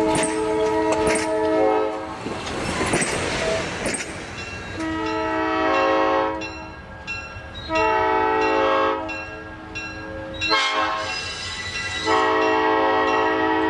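Multi-note air horn of Southern Pacific E9 diesel locomotive No. 6051 sounding in separate blasts while it is tested: one ending about two seconds in, two shorter ones at about five and eight seconds, and a long one starting near the end. A rush of noise fills the gap after the first blast.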